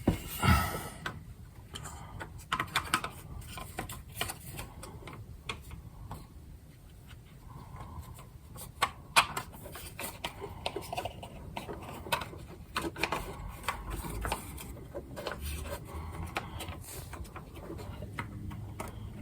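Scattered clicks, taps and light knocks of hard plastic and metal parts being handled as an air compressor's air filter housing is put back together, with the loudest clicks about half a second in and about nine seconds in.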